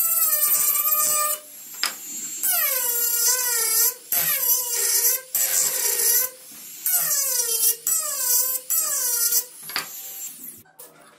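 Handheld rotary tool with a small cutoff wheel cutting slots into a thin board disc. It comes in about seven bursts, the motor's whine dropping in pitch as the wheel bites in and then holding, over the gritty hiss of the cut. It stops near the end.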